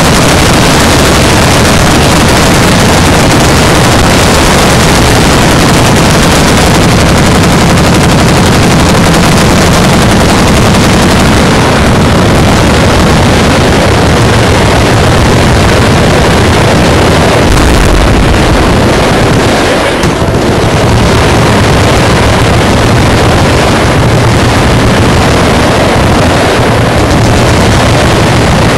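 Many machine guns firing at once, a continuous dense roar of overlapping automatic fire loud enough to overload the recording. A deeper boom comes about eighteen seconds in.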